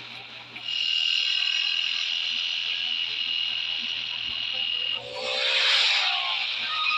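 Cartoon sound effects: a high, steady electronic tone over a hiss for about four seconds. Then a motorcycle whooshes past about five seconds in.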